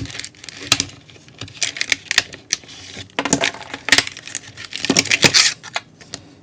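Packaging and a metal multi-tool being handled by hand: a run of irregular clicks, taps and rustles, busiest in the middle.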